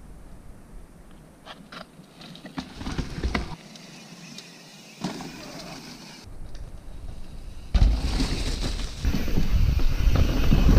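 Mountain bike riding on a dirt trail: tyre rumble and scattered knocks and rattles, with wind buffeting the camera microphone. It is fairly quiet with a few clicks at first and turns much louder from about eight seconds in.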